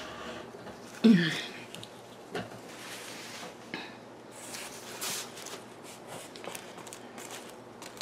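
A short grunt about a second in, the loudest sound, falling in pitch. Then rustling and crinkling of packing paper and plastic as hands dig through a cardboard box of packed plant cuttings, with a few light knocks.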